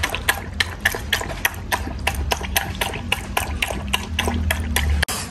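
A very thirsty poodle lapping quickly from a plastic bowl, about four to five laps a second in a steady rhythm.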